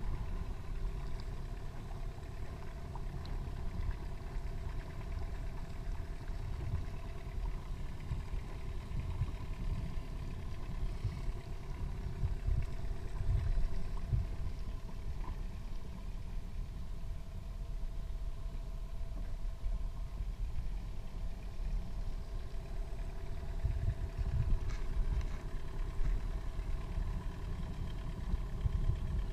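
Yamaha outboard motor idling steadily: a constant low rumble with a steady hum on top.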